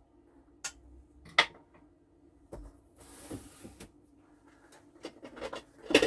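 Scattered clinks and knocks of a spoon against a soup pot as the soup is stirred, with a short hiss around three seconds in and a quicker run of knocks near the end.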